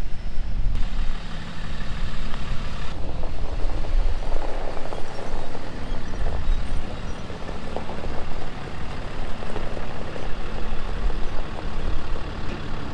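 Cummins diesel engine of a Ram 5500 truck running at low speed as the truck drives into its parking spot, a steady low rumble.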